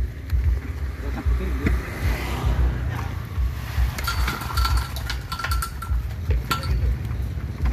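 Wet concrete tipped from a steel wheelbarrow into the hole around a steel street-light pole. From about four seconds in there is a run of metal clinks and scrapes with a brief ringing tone, over a low, uneven rumble.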